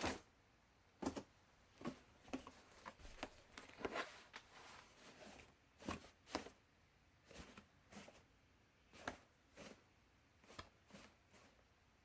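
Laundry basket being handled: a run of short, irregular knocks and clicks with faint rustling between. They come thick and fast in the first few seconds, then sparser and softer.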